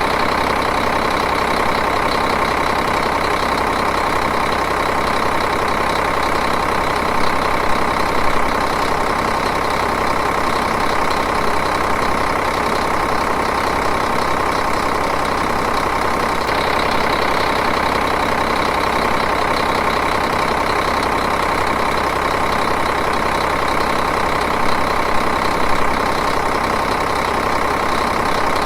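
Diesel engine idling steadily, with an even, rapid clatter.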